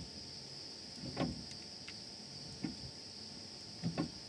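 Brake pedal of a Dodge Grand Caravan being pumped in short strokes to push a new rear caliper's rewound piston back out against the pads. Three faint mechanical knocks come about a second and a half apart, the last one doubled. Crickets chirr steadily in the background.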